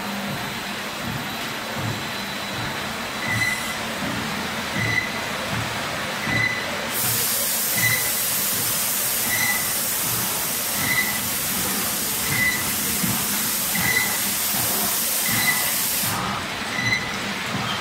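Spindleless veneer peeling lathe running as it peels a log into veneer: steady machinery noise with regular low thumps and a short high tone repeating about every second and a half. A loud hiss comes in about seven seconds in and cuts off abruptly near the end.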